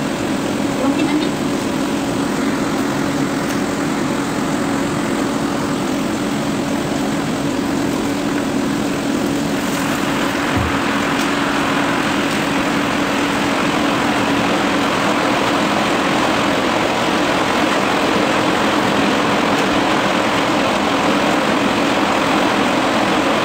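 Thin chip slices deep-frying in a wok of oil: a steady sizzle over a continuous drone with a low hum beneath it. The sizzle gets louder and brighter about ten seconds in, as the slices are stirred with a ladle.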